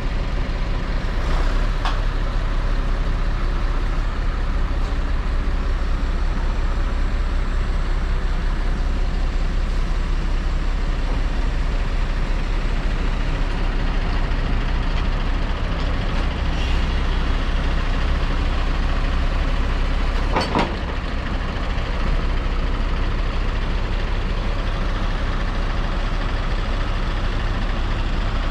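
Steady running of the Iveco 90E18 truck's diesel engine together with the hydraulics of its Atlas AK88.1 knuckle-boom crane as the boom is moved. A single sharp click sounds a little over two-thirds through.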